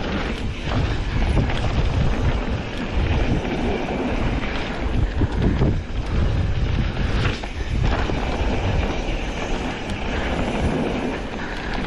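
Mountain bike ridden fast down a dirt trail: wind rushing over the microphone, with the tyres rolling over dirt and dry leaves. The bike rattles and knocks over bumps, most strongly about six and seven to eight seconds in.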